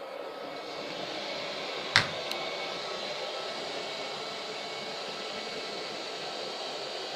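iLife V50 robot vacuum cleaner running with a steady motor noise that grows louder about a second in. A sharp click about two seconds in, with a fainter one just after.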